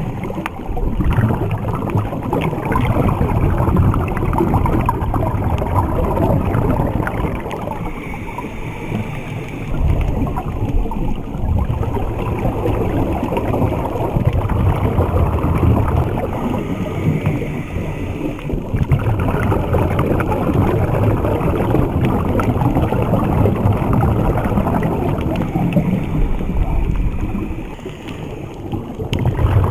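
Underwater water noise heard through an action camera's waterproof housing: a loud, muffled, churning rush with diver's exhaled bubbles from the Snuba regulator, easing briefly a few times.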